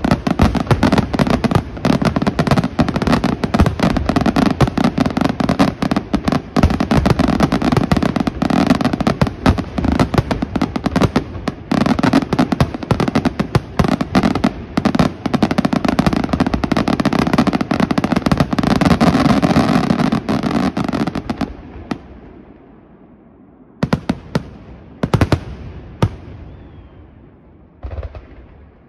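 Pirotecnica Senatore fireworks display: a dense barrage of aerial shell bursts and crackling bangs for about twenty seconds, then dying away, with a few separate bangs about a second apart near the end.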